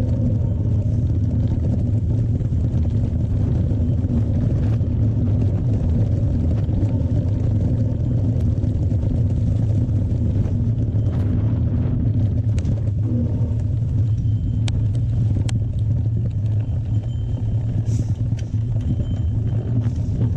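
Mountain bike riding down a dirt trail: steady low wind rumble on the camera microphone, with scattered short clicks and knocks from the bike over the ground.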